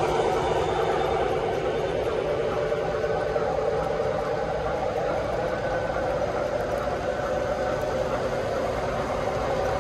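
Three-rail O-gauge model train rolling past: a steady rumble and hum of metal wheels on the track, easing slightly as the last cars go by.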